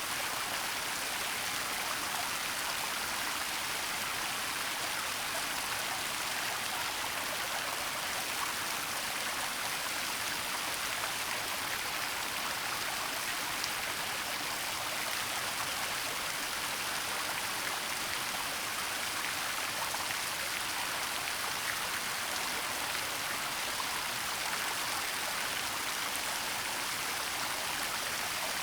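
Waterfall and flowing water in a forest: a steady, even rush of falling water, bright and hissing, with no breaks.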